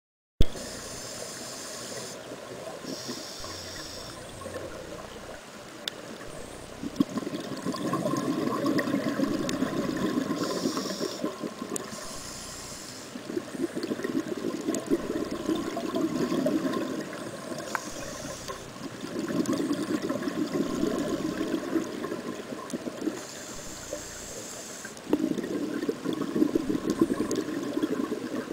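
Scuba regulator breathing heard underwater: about four breaths, each a short hiss of inhalation followed by several seconds of bubbling exhalation.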